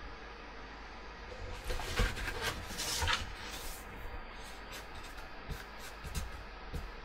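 Small handling noises at a painting desk: a burst of rustling about two to three seconds in, then a few light taps and knocks as a sheet of watercolour paper is picked up, over a low steady hum.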